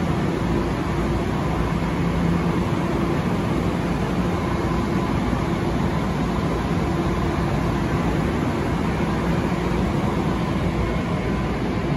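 A Long Island Rail Road electric train standing at the platform with its doors open, humming steadily with a low rumble and a few held tones from its onboard equipment.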